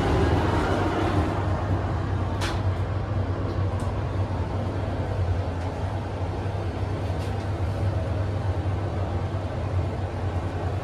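Heights elevator car riding between the platform and mezzanine: a steady low hum and rumble from the running elevator, with a few light clicks.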